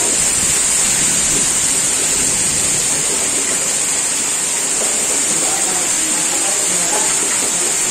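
Very heavy rain pouring down, a loud, steady hiss.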